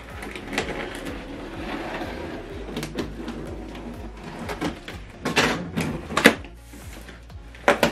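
Scissors cutting along the packing tape on a cardboard box, a dense scraping that lasts about three seconds, followed by several sharp knocks and clicks of the cardboard box being handled.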